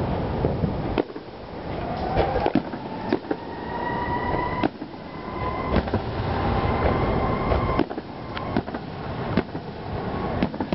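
Aerial fireworks shells bursting overhead: a series of sharp bangs and cracks over a continuous rolling rumble of booms. A long high whistling tone rises and then holds through the middle.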